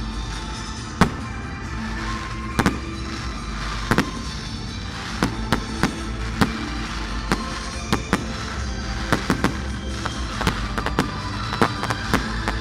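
Fireworks bursting overhead: sharp bangs at irregular intervals, coming thicker and faster in the second half, over music playing along with the display.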